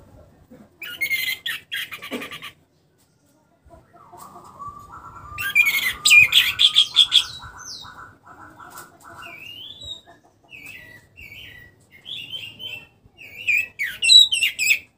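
Orange-headed thrush (anis merah) singing in separate, varied phrases. A loud run of repeated notes comes about six seconds in, then short upward-sweeping phrases, with another loud phrase near the end.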